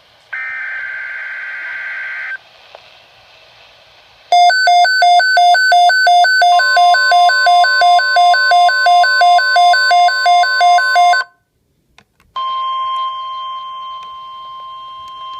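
Weather radio sounding an Emergency Alert System alert. First comes a buzzy digital data burst, the SAME header. At about four seconds the receiver's alarm starts beeping rapidly, and about two seconds later the steady 1050 Hz warning alarm tone joins underneath. After a brief silence the 1050 Hz tone carries on alone.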